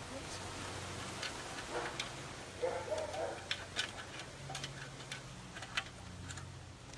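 Scattered light clicks and taps at an uneven pace, as a puppy picks up small toys from a basket, over a steady low hum.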